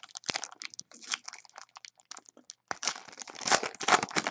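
Foil trading-card pack wrapper being torn open and crinkled by hand: an irregular crackling and rustling, loudest over the last second and a half.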